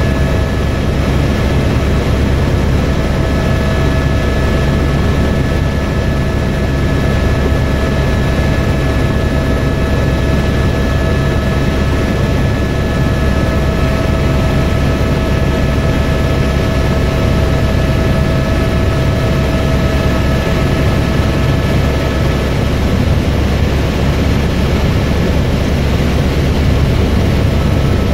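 Helicopter in flight: a steady, loud low rumble of engine and rotor with a few steady whining tones over it, the lowest of which fades out about three quarters of the way through.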